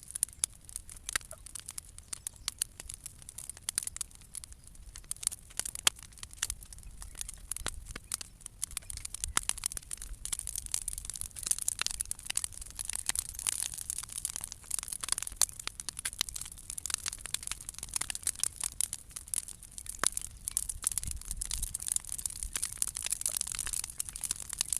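Bonfire of old wooden decking and cut branches crackling and popping over a steady hiss, the pops growing denser about ten seconds in.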